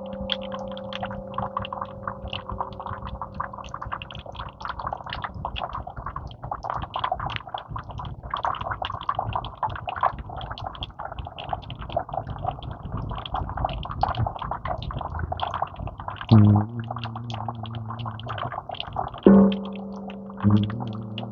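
A struck chime's note, already ringing, fades away within the first few seconds; the instrument does not hold the tone long. A dense patter of small clicks and rustling runs throughout, and near the end the chime sounds again in three short, ringing notes.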